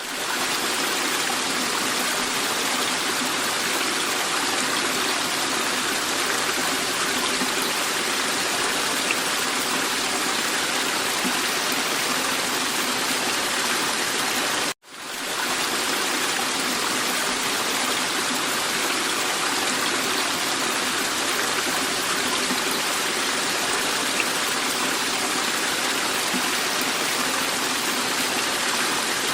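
Bachkovo waterfall: water rushing and splashing steadily as it falls in many small rivulets. The sound cuts out for an instant about halfway, then fades back in.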